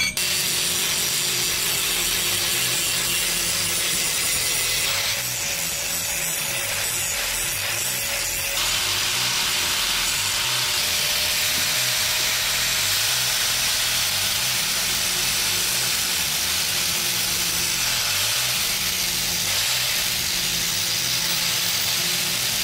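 Angle grinder running steadily against steel, grinding down rough MIG welds on a scrap-metal door handle, with a slight change in tone for a few seconds near the start.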